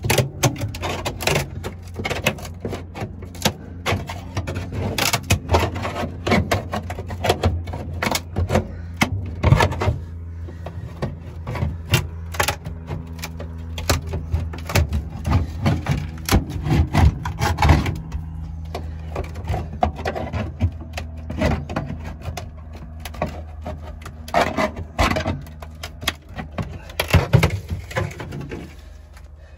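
A hand scraper prying and scraping under a glued-down galvanized sheet-metal panel on a car's rusted floor pan: repeated sharp clicks, scrapes and knocks of metal on metal, over a steady low hum.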